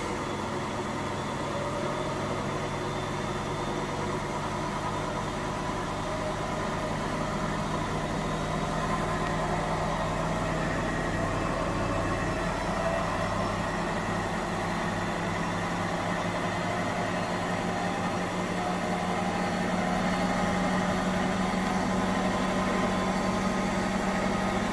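Indesit washing machine spinning, its drum and motor building up toward maximum spin speed: a steady machine hum whose pitch rises slowly and grows a little louder.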